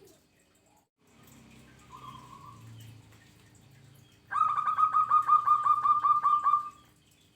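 Zebra dove (perkutut) calling: a loud, rapid run of about fourteen short, evenly spaced staccato notes. It starts about four seconds in and lasts some two and a half seconds.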